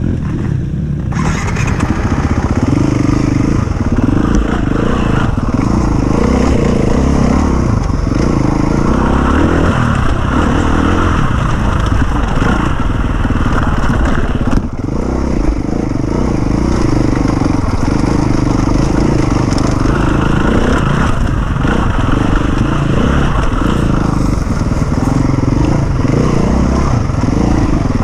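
Enduro dirt bike engine running hard, its pitch rising and falling again and again as the throttle is worked, with a brief dip about halfway through.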